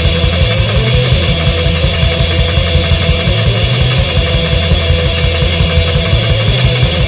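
Loud, distorted heavy metal music with a fast, pounding low end and a dense, droning upper layer.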